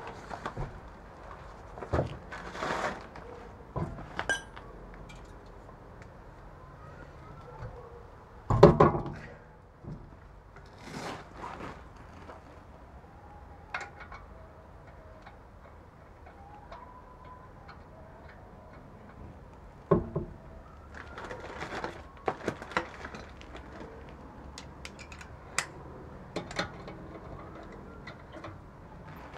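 Front alloy wheel being refitted to a BMW E46's hub: scattered metallic clinks and knocks as the wheel bolts are threaded in and run down with a wrench, with one heavy thump about nine seconds in and bursts of quick clicks near the end.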